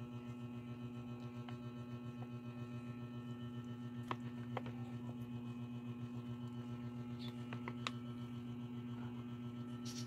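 A steady low hum that flutters quickly, with a few faint clicks.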